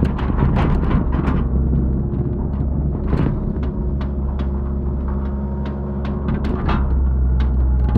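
Excavator's diesel engine running steadily under load, with scattered knocks and scrapes as the machine digs soil.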